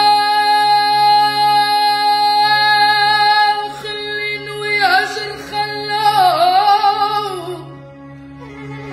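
A boy singing with a powerful Eastern Arabic voice, accompanied by a violin. He holds one long high note for about four seconds, then winds through melismatic ornaments.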